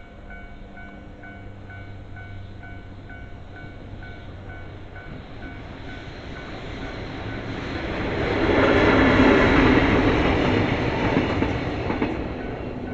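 Japanese level-crossing warning bell dinging evenly about twice a second while a train passes the crossing. The wheel and rail noise swells from about six seconds in, is loudest around nine to ten seconds, and fades near the end.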